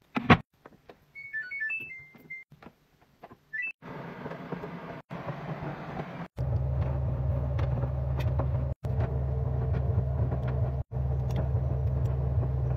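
Front-loading washing machine starting up: a thump, then a short run of electronic beeps from the control panel, water rushing into the drum, and from about six seconds in the drum turning with a steady low motor hum and water splashing, broken by brief gaps.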